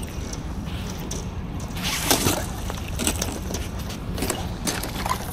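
Steady wind rumble on the microphone, with a few irregular crunching knocks, the loudest about two seconds in, as a fishing magnet on its rope is hauled back through broken ice.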